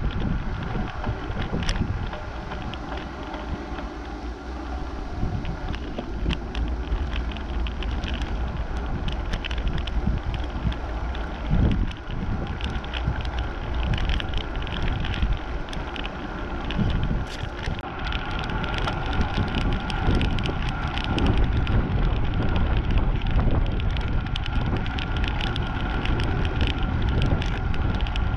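Wind buffeting the microphone of a camera on a moving bicycle, a steady low rumble, with the tyres rolling on asphalt and scattered light ticks and rattles from the bike.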